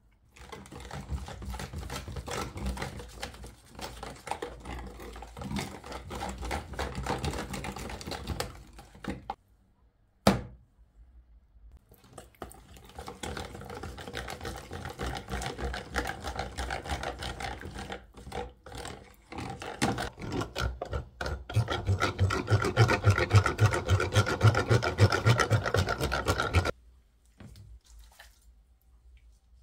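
Wire whisk beating a wet spice marinade in a plastic tub: a scraping, sloshing mix that comes in two long stretches, the second turning to louder, regular strokes near the end before stopping suddenly. A single sharp knock falls between the two stretches.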